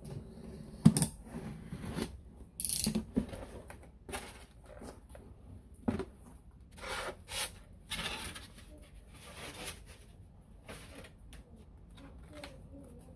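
Irregular clicks and clatters of small hard objects being handled, with a few short scraping or rustling bursts. The sharpest click comes about a second in.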